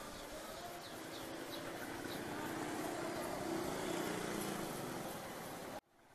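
Low, steady street and traffic noise with faint high chirps, cut off abruptly near the end.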